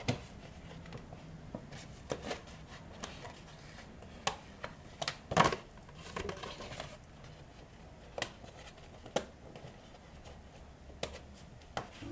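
A piece of cardboard being cut and handled for a template: irregular clicks, snips and scrapes, the loudest cluster about halfway through.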